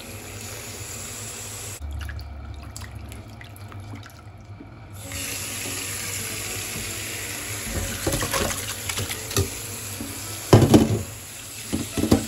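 Kitchen tap running into a metal pot and over raw chicken pieces in a stainless-steel sink, a steady splashing stream. In the last few seconds there are louder splashes and knocks as the chicken is rinsed by hand in a steel colander under the tap.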